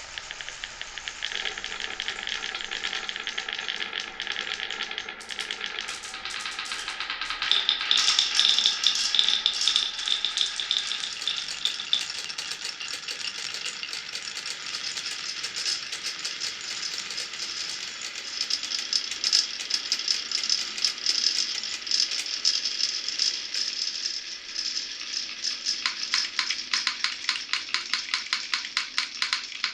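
Marbles rolling and clattering down a wooden marble run, a continuous rattle of many small clicks. In the last few seconds it becomes a fast, even run of clicks.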